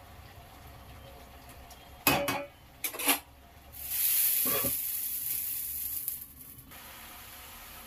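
Two sharp metal clanks of pots or utensils, then a few seconds of sizzling from a vegetable curry cooking down in a kadai, cutting off abruptly.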